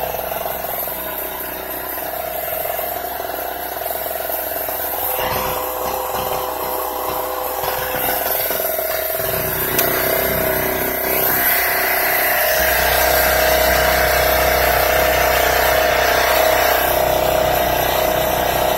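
Harbor Freight TailGator 700-watt portable generator's small engine running steadily, powering a battery charger; it gets a little louder, with more low rumble, from about twelve seconds in.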